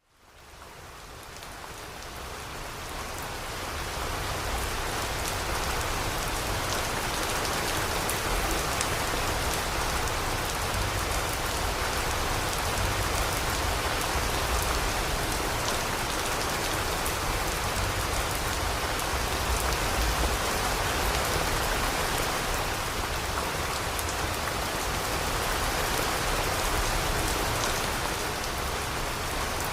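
Steady rain falling, with fine pattering of drops on a surface; it fades in from silence over the first few seconds and then holds steady.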